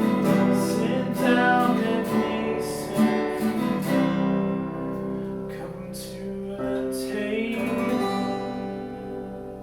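Acoustic guitar strumming chords. The strums thin out after about four seconds and the chords ring and fade away, as at the close of a song.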